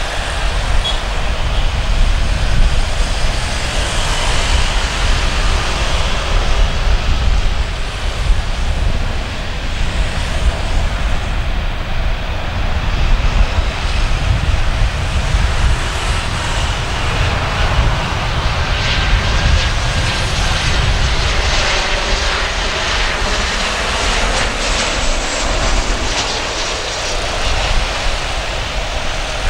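Jet engines of a Boeing 737-900ER on final approach: a steady rushing jet noise over a deep rumble, with the hiss growing brighter in the second half as the airliner comes over and flares toward touchdown.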